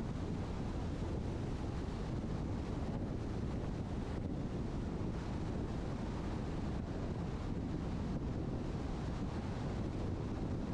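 Steady rush of tyre and wind noise from a car driving along, heaviest in the low end, with no change through the stretch.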